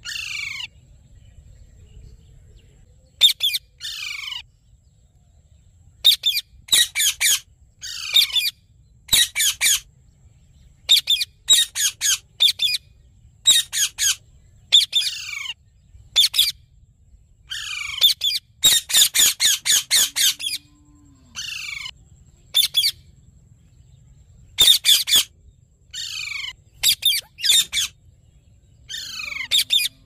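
Indian ringneck parakeets squawking in short bouts of rapid repeated calls, many sliding steeply down in pitch, with pauses of a second or two between bouts.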